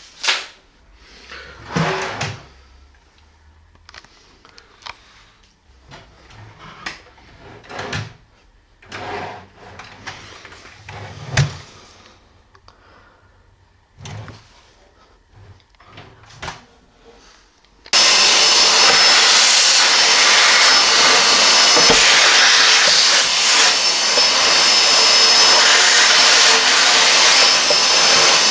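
Scattered knocks and clicks of drawer parts being handled. About two-thirds of the way in, a loud electric motor starts suddenly and runs steadily with a thin high whine, like a vacuum cleaner or a power tool.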